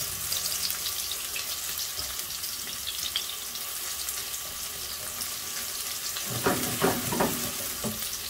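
Sliced garlic and spring onions being lightly sautéed in hot sunflower oil in a non-stick frying pan: a steady sizzle, stirred with a silicone spatula. A few louder stirring strokes come near the end.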